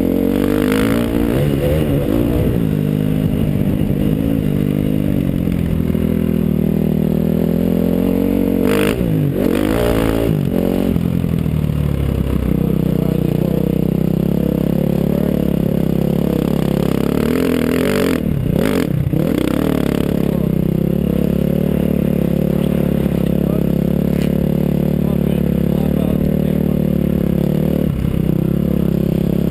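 KTM 350 SX-F four-stroke single-cylinder dirt bike engine being ridden hard around a motocross track, held on the throttle with a steady pitch. The throttle is chopped and snapped open again twice, about a third of the way in and again about two-thirds through, so the engine note drops and climbs quickly.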